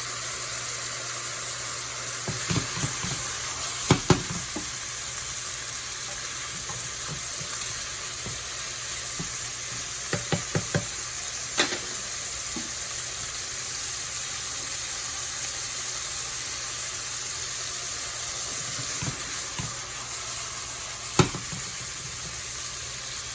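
Chicken pieces frying in hot oil with garlic, ginger and shallots, a steady sizzle, with a cooking utensil knocking against the pan a few times: a pair of knocks about four seconds in, a cluster around ten to twelve seconds, and one more near the end.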